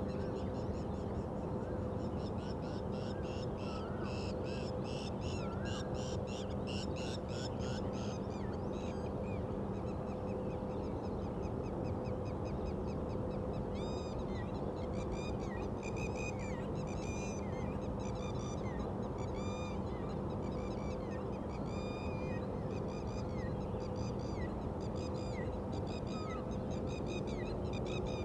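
Birds calling before sunrise: a fast run of calls a few seconds in, then short downward chirps repeating over and over. A steady low hum runs underneath.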